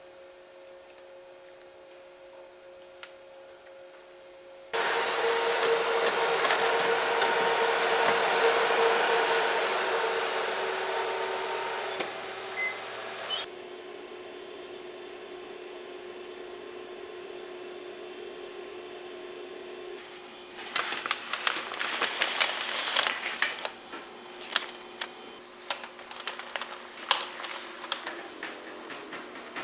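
A loud, steady motor-driven whoosh with a hum starts about five seconds in and cuts off suddenly after about nine seconds. A convection oven's fan then runs steadily. In the last third, baked macaron shells clatter and tap as they are slid off a baking mat onto a metal tray.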